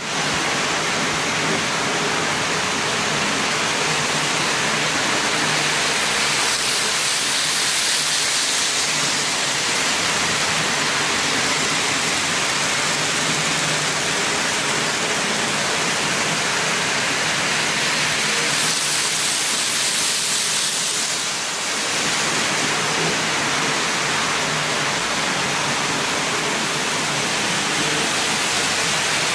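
Several model trains running at once on a multi-level layout: a steady whirring hiss of small wheels on the rails and the locomotive motors. It swells twice, about a quarter and two thirds of the way through.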